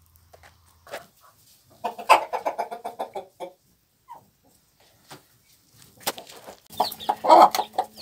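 Chickens clucking in quick runs of short clucks, one about two seconds in and a denser one from about seven seconds. The later run is a mother hen clucking to call her chicks to food.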